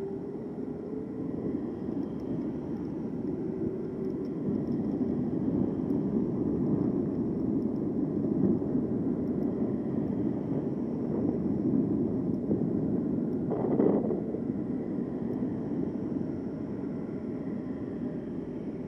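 Steady rushing of wind and road noise on the camera's microphone while riding an e-bike along a concrete sidewalk beside traffic. A brief louder swell comes about three-quarters of the way through.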